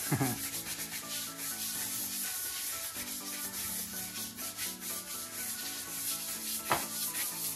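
Hand scrubber worked back and forth over wet ceramic floor tiles in quick, continuous rubbing strokes.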